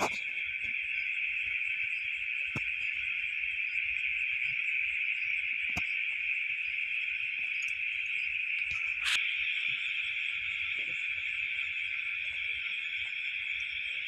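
Steady, unbroken chorus of crickets filling the night air, with a few faint clicks or knocks, the sharpest about nine seconds in.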